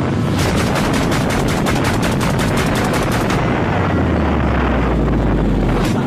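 Loud wind rush on the microphone of a KTM RC 200 motorcycle ridden at highway speed. Through the first half it breaks into a fast crackle of buffeting, and a deep low rumble builds in the second half and cuts off just before the end.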